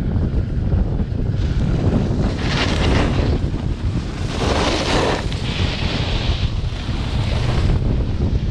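Wind rushing and buffeting over an action camera's microphone during a downhill snowboard run, a steady loud rumble. Hissing surges of snow scraping under the edges come in a few times, about two and a half seconds in, around the middle, and again for a couple of seconds after.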